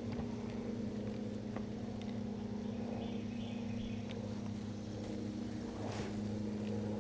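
Small boat motor running steadily; it comes on abruptly just before and holds an even pitched hum, shifting slightly in pitch near the end.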